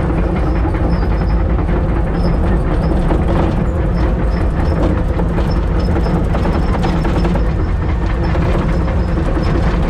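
Kobelco excavator travelling on its steel tracks: the diesel engine runs steadily under a dense, continuous track rattle, with faint high squeaks.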